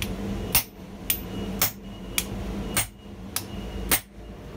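Hand hammer striking the top die of a steel guillotine die set on the anvil, forging hot mild steel. About seven sharp metallic blows roughly half a second apart, some heavier and some lighter, over a faint steady hum.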